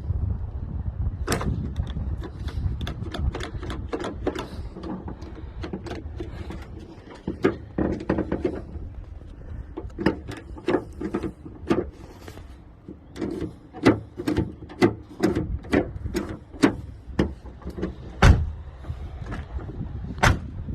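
The repaired exterior door handle of a Toyota Land Cruiser 100/105-series is yanked over and over, its latch mechanism clacking and snapping back each time. The clicks come irregularly and grow much more frequent in the second half. This is a test of the fixed handle's strength.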